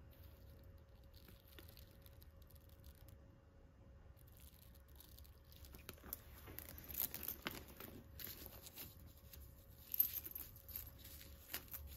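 Faint crinkling and rustling of a clear plastic protective sleeve being pulled off a handbag's metal chain strap, with small clicks, starting about halfway through.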